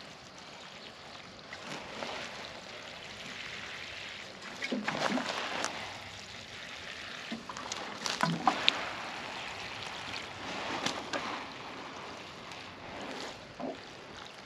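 Water mixed with fertilizer being poured from a container onto the soil around tomato plants, splashing as it lands. The flow swells and eases, loudest about five and eight seconds in.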